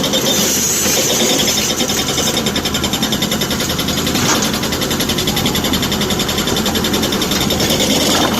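A heavy diesel engine running steadily, with a fast, even clatter that holds throughout.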